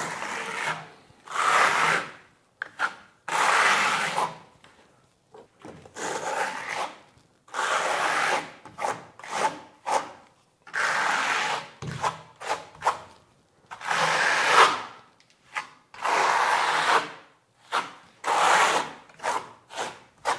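Notched trowel spreading a thick coat of lime plaster across a wall panel: a run of scraping strokes, one every second or so, each lasting about a second.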